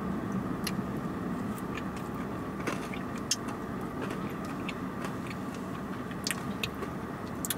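A person chewing food with the mouth closed, with faint scattered clicks, over the steady low hum of a car cabin.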